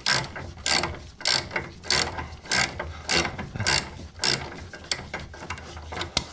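Socket ratchet being worked on a bolt in repeated short strokes, each stroke a quick rattle of pawl clicks, a little under two strokes a second, petering out into a few lighter clicks near the end.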